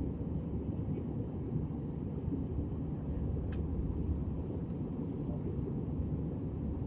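Steady low rumble of jet engines and rushing air heard inside the cabin of an Airbus A320-family airliner climbing after takeoff. A single sharp click sounds about halfway through.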